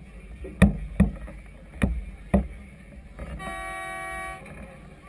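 Four sharp knocks in the first two and a half seconds, then a single steady horn blast about a second long.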